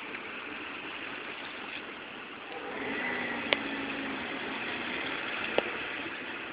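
Steady street traffic noise from cars, with a vehicle engine's low hum rising in the middle. Two sharp clicks come about two seconds apart, the second near the end.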